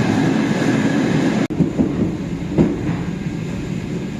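Electric commuter train running along the track: steady rumble of wheels on rails, with a few clacks over rail joints about halfway through.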